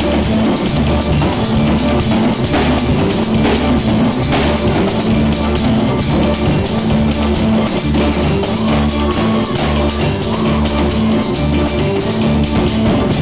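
Drum kit played along with loud band music, keeping a steady repeating beat under a sustained bass line.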